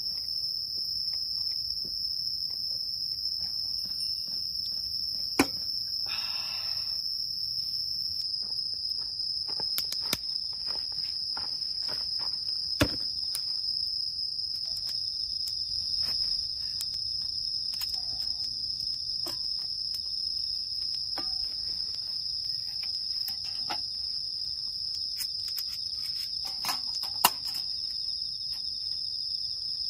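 A steady, high-pitched insect chorus trilling without a break through the night. Scattered sharp clicks and knocks sound over it, the loudest about five seconds in and again near the end, with a brief rustle just after the first.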